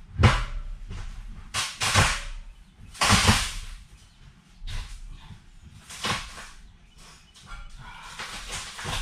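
A school-bus passenger seat being wrenched loose from its floor mounts: about seven short noisy bursts of clanking and scraping, spaced a second or so apart.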